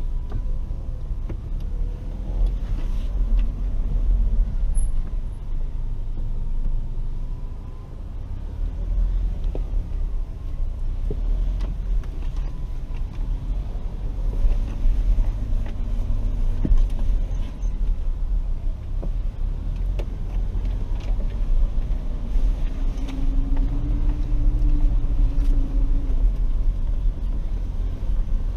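Cab-interior sound of a Ford Ranger FX4 crawling over a rough dirt trail: a low, steady rumble of its turbocharged 2.3-litre four-cylinder and the tyres, with the engine note rising and falling a little. Scattered short knocks and rattles come as the truck jolts over the ground.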